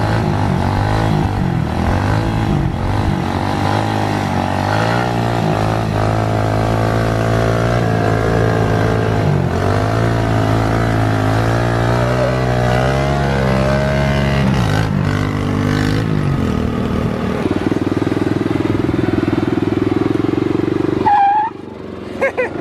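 Kawasaki pit bike engine revving during a wheelie, its pitch rising and falling as the throttle is worked, then holding steadier. It cuts off abruptly near the end.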